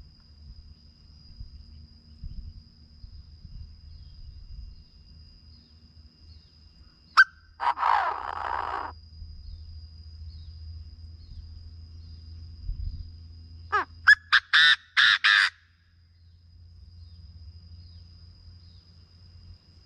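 Chinese francolin calling: one harsh call about a third of the way in, then a loud rhythmic series of about six notes.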